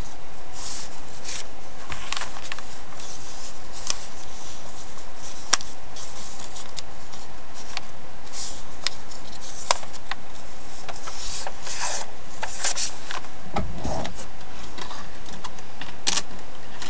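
Paper rustling and rubbing as hands turn and smooth the pages of a handmade paper journal, with a few sharp clicks and a brief soft thump about three-quarters of the way through.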